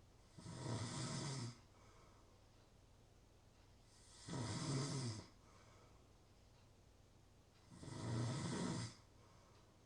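A person snoring: three snores, each about a second long, coming every three and a half to four seconds.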